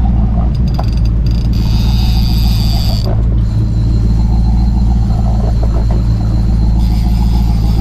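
Boat engine running steadily at trolling speed, a constant low hum, with a high whine that comes and goes over it.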